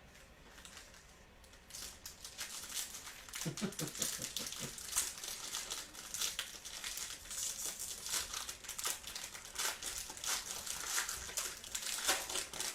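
Foil wrapper of a football trading-card pack crinkling as it is torn open and the cards are pulled out. The crinkling starts about two seconds in as a dense, irregular crackle.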